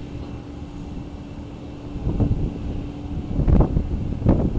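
Wind buffeting the microphone in gusts, with three louder rumbles about two, three and a half and four and a quarter seconds in, over a steady distant hum.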